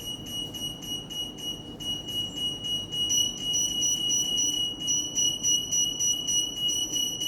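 Alarm of an AM anti-theft (EAS) antenna going off: a high, steady electronic beep-tone that pulses quickly and evenly, switching on right at the start. It is the antenna detecting a silk security tag passed through its field.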